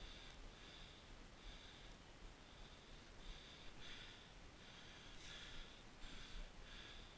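Faint, irregular breaths close to the microphone, short hissy puffs coming every half second to a second.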